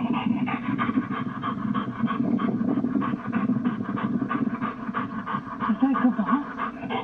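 A dog panting rapidly and steadily, about four to five quick breaths a second.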